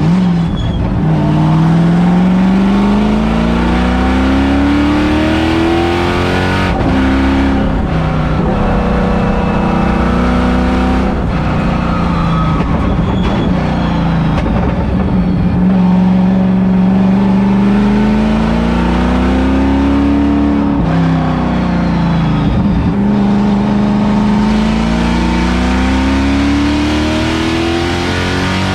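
LS3-swapped Mazda Miata's 6.2-litre V8, heard from inside the cabin under hard acceleration on track. The engine note climbs steadily in pitch through three long pulls, each ending in a sudden drop, with a steadier, lower stretch in between.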